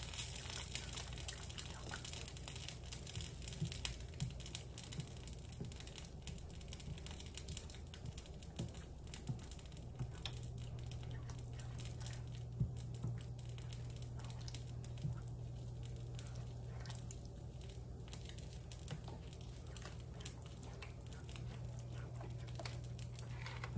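Silicone spatula stirring a thick, creamy chicken and mashed potato mixture in a skillet: soft wet stirring with small irregular taps and scrapes against the pan. A low steady hum comes in about ten seconds in.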